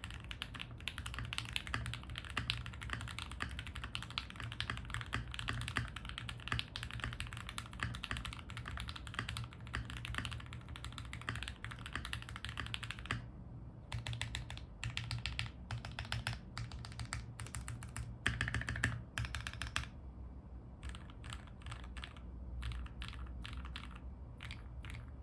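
Typing on a modded Keychron Q2 mechanical keyboard with lubed and filmed Everglide Aquaking linear switches, Keychron PBT Cherry-profile keycaps, tuned stabilizers and case foam. Fast continuous typing for about the first half, then slower separate keystrokes with short pauses.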